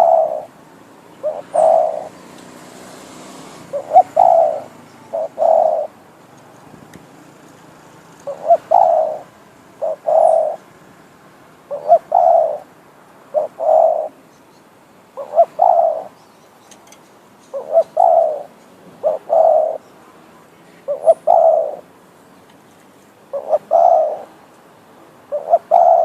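Spotted dove cooing: a decoy bird giving its low, repeated coo phrases of two or three notes about every two seconds.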